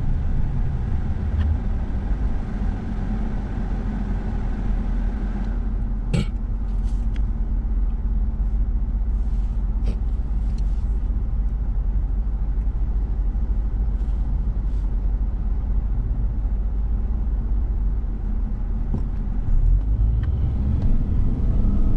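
Car road and engine noise heard from inside the cabin: a steady low rumble whose tyre hiss fades as the car slows to a stop at a traffic light, with a couple of sharp clicks while it waits. The engine noise swells near the end as the car pulls away.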